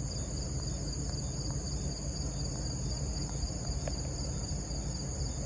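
Crickets trilling in a steady, high-pitched chorus of several unbroken tones, over a low steady rumble.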